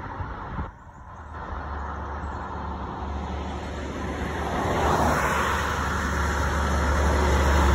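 Diesel fire engine approaching on a road with no siren, its low engine rumble and tyre noise growing steadily louder, mixed with the road noise of a car passing close by.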